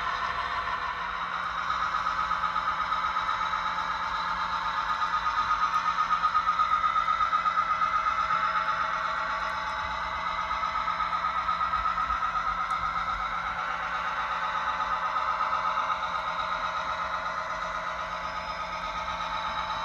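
Model train locomotive running along the layout: a steady pitched whine with a fast, even pulsing beat, swelling louder about six to eight seconds in and easing off again.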